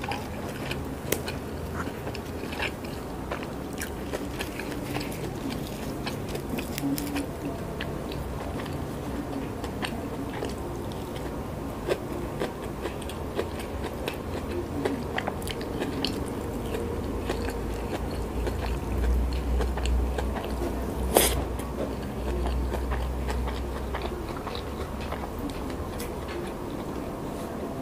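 Close-miked chewing of a mouthful of rice, salted fish and raw leaves, with wet mouth clicks and small crunches throughout. One sharp click stands out about three-quarters of the way through.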